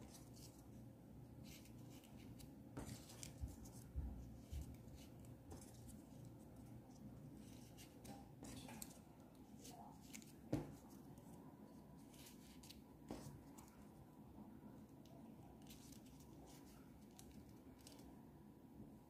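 Faint rustling and small clicks of folded paper triangle units being handled and slotted together, with a few sharper taps, over quiet room hum.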